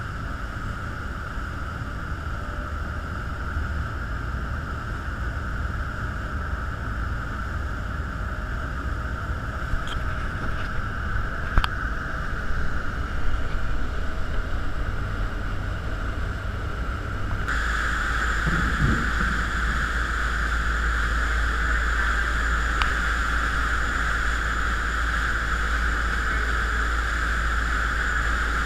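Sportfishing boat running at speed: a steady drone of its engines with the rush of water and wind along the hull. About two-thirds of the way through, the sound changes abruptly and becomes louder and steadier.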